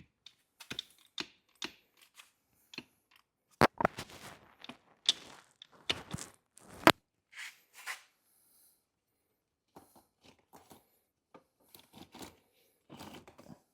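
Irregular sharp clicks and knocks from hands working the shift shaft and foot shift lever of a 2015 Sherco 300 two-stroke, the loudest a few seconds in and again near the middle.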